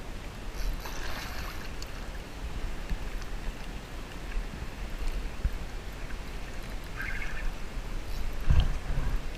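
Water lapping and gurgling against a kayak's hull over a steady low wind rumble on the microphone, with a few brief splashy sounds and a knock about eight and a half seconds in.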